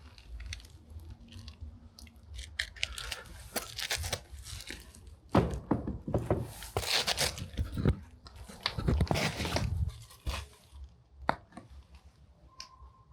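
Footsteps crunching and crackling over rubble and debris on a ruined floor, with sharp snaps and clicks, loudest and densest in the middle stretch.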